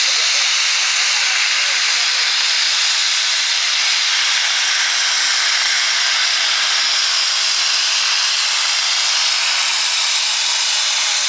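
Light super class pulling tractor's engine running at full throttle under load as it pulls the sled down the track: a loud, steady noise that holds level throughout.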